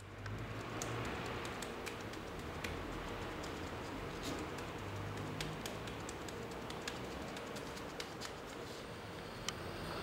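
Scattered small clicks and taps of gloved hands working white powder onto the cracked bell, over a steady background hiss.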